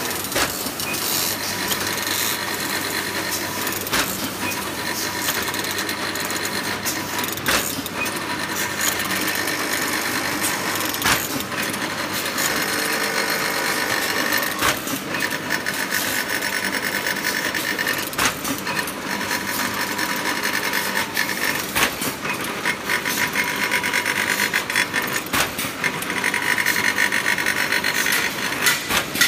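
SHCB14 paint brush head assembly machine running: a continuous mechanical clatter over a steady hum, with sharp knocks at irregular intervals.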